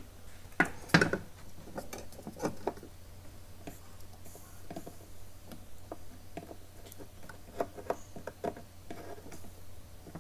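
Scattered light clicks and taps of a soldering iron and a pointed tool on a circuit board pad coated in flux, the loudest tap about a second in, over a steady low hum.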